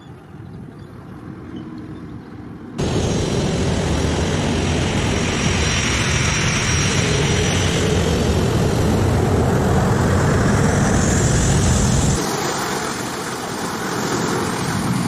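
Jet airliner engines running loud and close: a dense roar with a thin high turbine whine on top. It comes in suddenly about three seconds in after a quieter building rumble, and its deep part falls away near the end.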